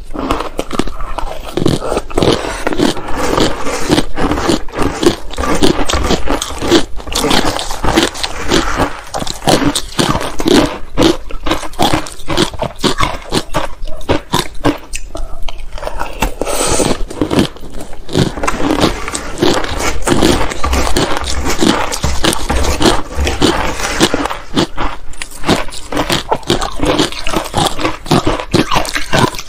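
Close-miked crunching and chewing of matcha-coated ice, two eaters' sounds layered together: a dense, continuous run of crackly bites with a short lull about halfway through.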